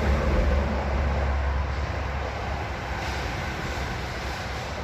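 Low rumble of passing road traffic, slowly fading away.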